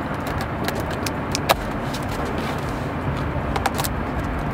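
Wire cutters snipping the packing straps on a cardboard appliance box: several short, sharp clicks, the loudest about a second and a half in, over a steady low rumble.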